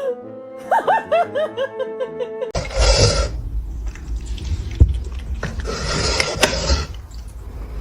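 A short bouncy music cue, then an abrupt change about two and a half seconds in to rough home-video sound: heavy rumble, two loud hissing swells and several sharp knocks.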